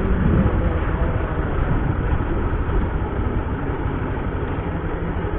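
Steady rumble of a running vehicle engine with an even noise, strongest in the low range.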